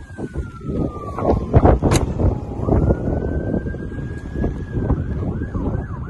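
An emergency vehicle siren sounds in a slow wail that falls and rises, then switches to a fast yelp near the end. It plays over clatter and a few sharp knocks, the loudest of them about two seconds in.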